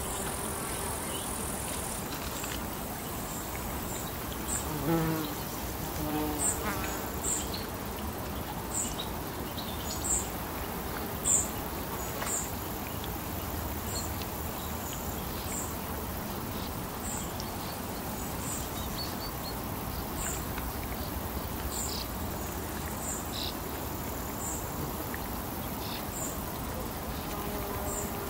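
Lakeside nature ambience: a steady soft hiss of water and air, with short, very high chirps repeating about once a second throughout. A few lower croaking calls come about five to seven seconds in, of the kind the uploader hears as frogs.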